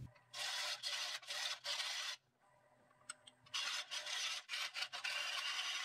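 A turning gouge taking a roughing cut on a large wooden blank spinning at 300 rpm on a Nova Neptune Max lathe: rough scraping and tearing of shavings in two spells of about two seconds each, with a short silent break between them.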